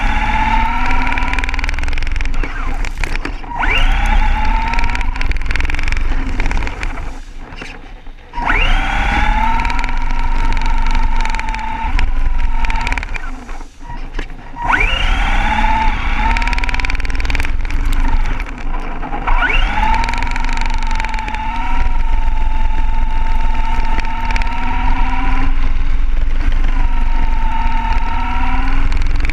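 Radio-controlled buggy's motor under throttle: a whine that sweeps sharply up in pitch each time it accelerates, then holds high. It eases off twice, about seven and thirteen seconds in, before speeding up again, over a steady low rumble.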